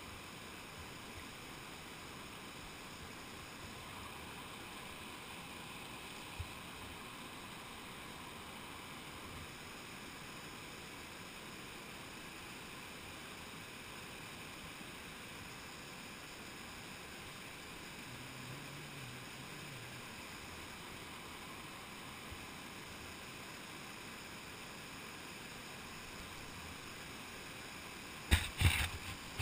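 Steady rush of river rapids, heard as an even hiss, with a few sharp knocks close to the end.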